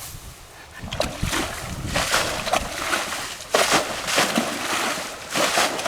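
Water being scooped out of a shallow pond and thrown, splashing down in repeated dumps every second or so.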